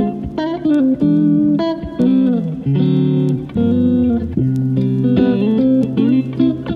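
Background music: a melody of short notes, several sliding in pitch, over a lower accompaniment.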